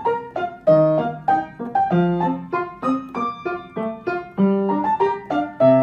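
Background piano music: a light tune of quick, evenly paced notes, each struck and fading.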